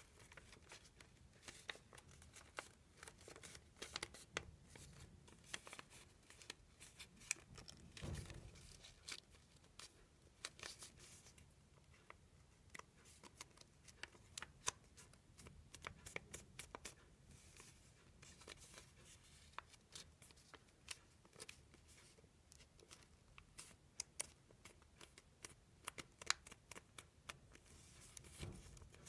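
Faint crinkling and crackling of a sheet of origami paper being folded and creased by hand, with many small scattered clicks and a slightly louder rustle about eight seconds in.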